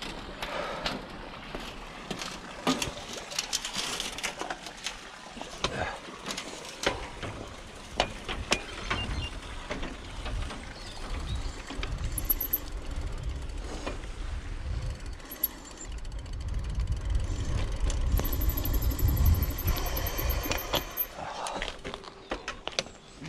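Road bicycle rolling over brick paving, with frequent clicks and rattles from the bike. Low wind buffeting on the microphone grows heavier in the second half.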